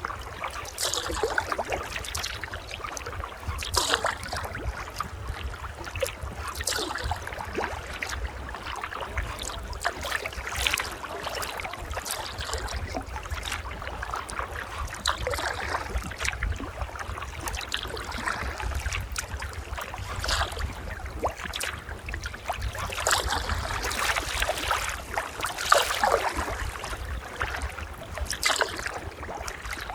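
Sea kayak paddling: the paddle blades dip and splash into the sea every second or two, and water trickles and gurgles off them, over a steady low rumble.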